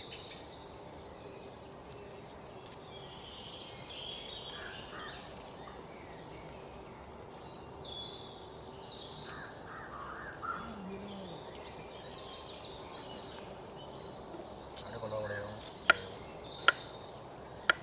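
Outdoor background with small birds chirping and calling now and then. Near the end come three sharp knocks.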